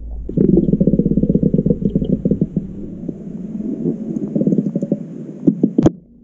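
Airsoft pistol fired underwater, heard from below the surface: a dense crackle of air bubbles and churned water for about five seconds, then a few sharp clicks near the end as the pistol is fired again and lets out a burst of bubbles.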